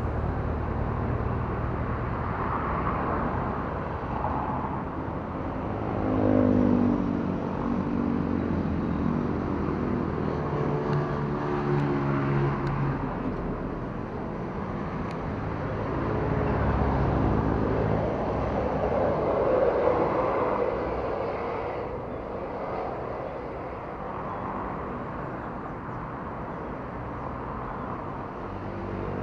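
Nearby road traffic: a steady hum of motor vehicles, with engines rising and falling in pitch as they pass, loudest about six seconds in and again around seventeen and twenty seconds.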